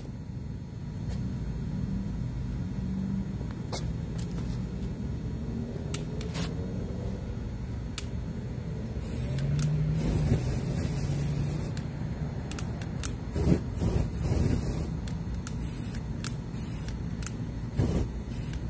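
Aerosol can sprayed through a lighter flame as a makeshift torch onto burning sneakers: a hissing burst from about nine seconds in, lasting around three seconds. Under it a steady low rumble, with scattered sharp clicks.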